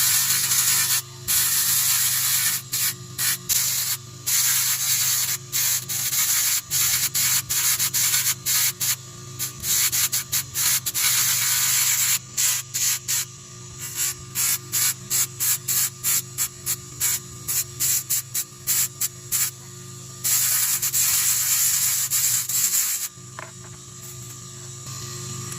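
Sandpaper rubbing in quick repeated strokes, with a few longer continuous passes near the start and end, over a faint steady low hum.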